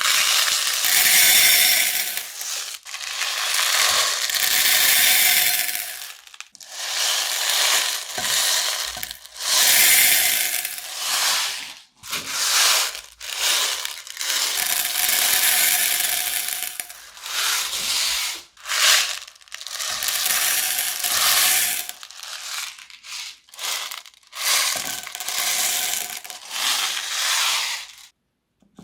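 Crunchy slime being squished and worked, a dense crisp crackling that comes in bursts of one to three seconds with brief pauses between them and stops just before the end.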